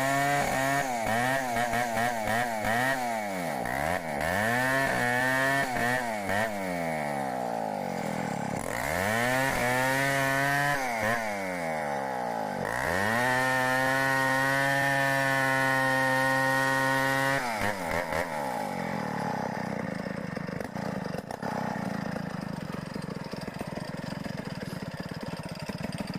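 Stihl 070 two-stroke chainsaw running, its engine pitch dropping and climbing back several times, then holding steady at full throttle for a few seconds. After that the engine tone fades out and a rough, hissing noise carries on.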